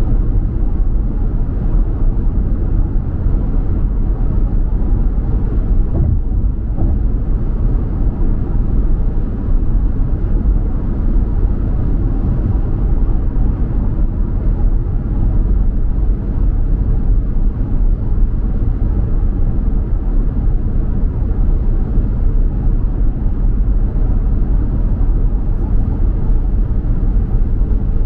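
Steady low rumble of a car being driven: road and engine noise.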